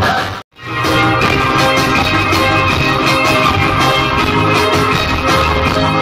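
Loud music played through a car's trunk-mounted speaker system. It cuts out for a moment about half a second in, then a different song with drums picks up.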